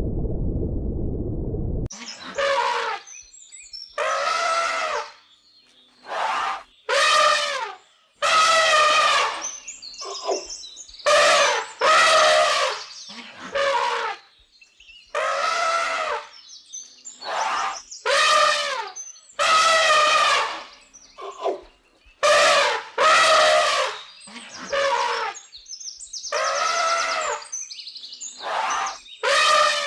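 An animal calling over and over: a long series of short, high-pitched cries, each arching up and down in pitch, after a low rumble that stops about two seconds in.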